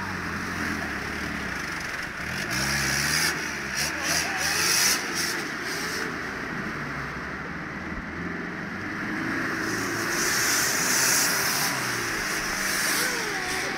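A 4x4's engine revving up and down as it churns through deep mud and water, with mud spraying off the spinning tyres.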